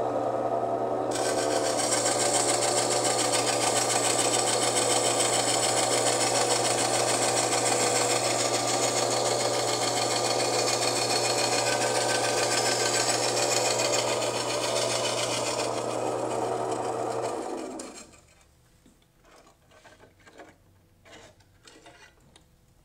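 Diamond Elite glass bandsaw running with a steady motor hum while its thin diamond blade grinds through a sheet of art glass. The grinding fades out about 16 seconds in and the motor stops a moment later, leaving only a few faint clicks.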